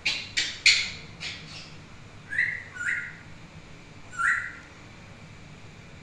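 African grey parrot calling: a quick run of sharp clicks, then three short whistled calls spread over the next few seconds.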